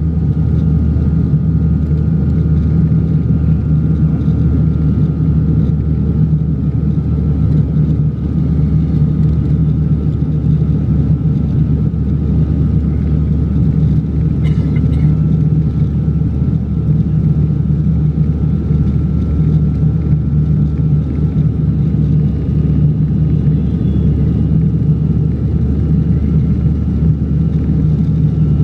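Steady drone of a passenger plane's engines heard from inside the cabin on the landing approach, with a brief click about halfway through.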